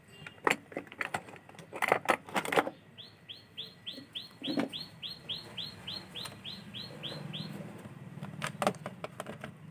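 Clicks and knocks of hands handling wires and a TV power supply board, loudest in the first few seconds and again near the end. In between, a bird chirps a run of about fifteen quick repeated high notes, about three a second.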